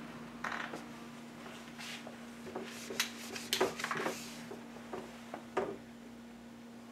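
Scattered rubbing, rustling and small knocks as a whiteboard is wiped clean and a marker is taken up to it, busiest around the middle. A low steady hum runs underneath.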